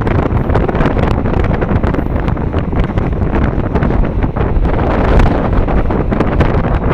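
Heavy wind buffeting the microphone over the running noise of a moving train, with many quick knocks and rattles.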